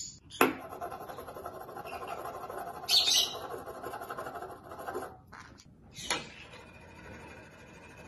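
A metal spoon knocking and scraping on a wooden tabletop, and a green-cheeked conure mimicking that sound. There is a sharp knock about half a second in, a louder high-pitched burst about three seconds in, and a few shorter clicks later on.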